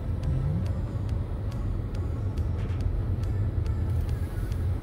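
Steady low rumble of a car driving slowly, engine and road noise heard from inside the cabin.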